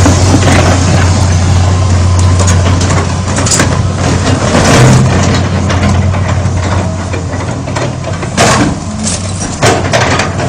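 A 20-ton excavator's diesel engine running steadily while it crushes a Nissan Laurel's body, with crunching metal and several sharp bangs near the end.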